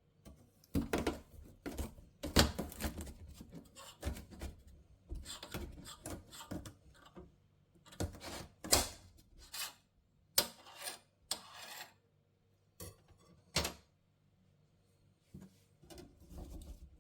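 Kitchen handling sounds: irregular knocks and clatters of dishes and utensils being picked up and set down, with short rustling between them.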